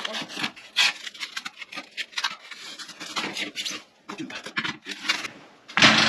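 Packaging being unwrapped: white wrapping and a cardboard box rustling, crinkling and scraping in quick irregular bursts, with a louder burst near the end.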